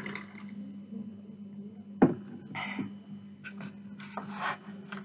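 Close-miked eating-and-drinking handling sounds. There is a swallow at the start, then an aluminium drink can is set down with a sharp knock about two seconds in, the loudest sound. A short breathy noise follows, and clicks and squishes come near the end as the burger is lifted from the polystyrene box, all over a steady low electrical hum.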